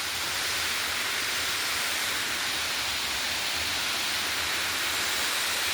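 Water rushing down a waterfall: a steady, even hiss.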